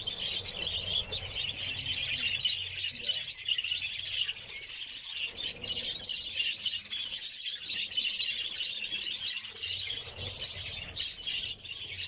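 A large flock of budgerigars chattering and chirping without pause, many birds at once.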